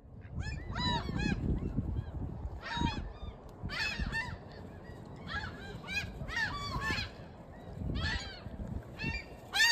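Gulls calling: repeated short, harsh squawks in bursts every second or so, over a low rumble.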